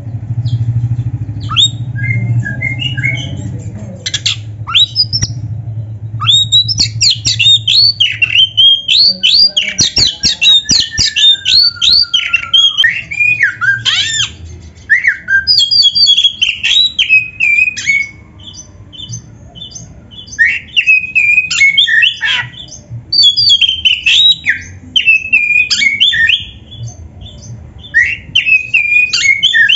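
Oriental magpie-robin (kacer) singing vigorously in rapid, varied phrases of whistled sweeps and harsh squawk-like notes, with short pauses. A low steady hum lies under the song and stops about nine seconds in.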